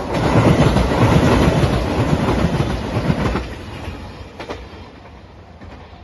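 Three-car JR Shikoku 2700 series diesel express train passing close by, its engines and wheels on the rails loud for about three and a half seconds, then quieter and fading as it moves away.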